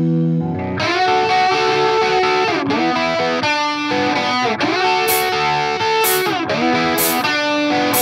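Background music led by electric guitar, holding long notes that bend down and back up in pitch about once a second. In the second half a short, bright high tap sounds roughly once a second.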